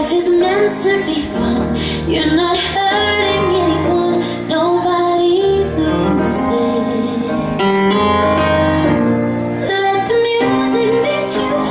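Pre-recorded playback song: a woman sings a melodic line over steady instrumental accompaniment.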